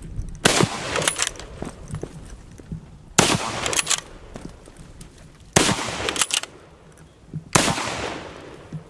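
Four shots from a Madsen M47 bolt-action rifle in .30-06, spaced about two to two and a half seconds apart. Each shot has a trailing echo, and there are fainter clicks between the shots.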